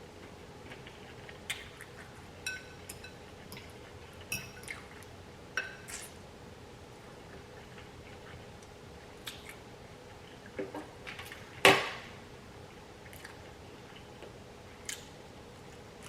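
Scattered clinks and taps of cutlery and dishes during a meal, a few ringing briefly, with one louder knock about twelve seconds in.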